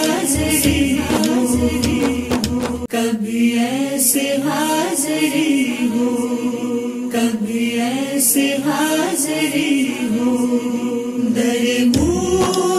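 Urdu devotional song (naat) on the soundtrack: a voice sings a long, winding melodic line over a low beat, which drops out about three seconds in and comes back near the end.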